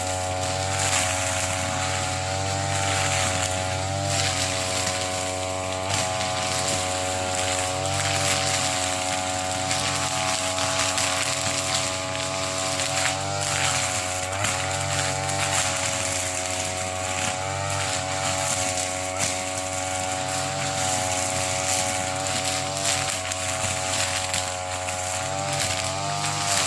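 TB33 brush cutter's two-stroke engine running at high revs while cutting thick grass, its pitch sagging briefly and recovering every few seconds as the cutting head takes the load.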